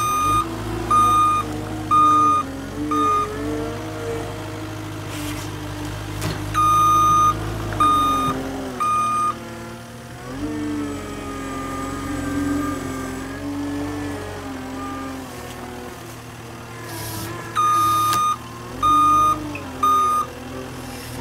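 Caterpillar 259D compact track loader working, its diesel engine rising and falling in speed. Three spells of short, evenly spaced backup-alarm beeps come as it reverses.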